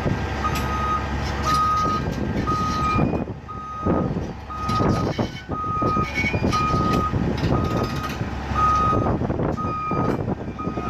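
Backup alarm beeping steadily about once a second over a diesel engine running, with scattered metallic clanks.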